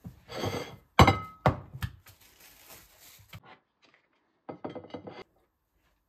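A metal loaf tin knocks twice against a plate with a thunk and clink as frozen chocolate ice cream is turned out of it. Cling film crinkles and rustles as it is peeled off the block, with a short burst of crinkling again near the end.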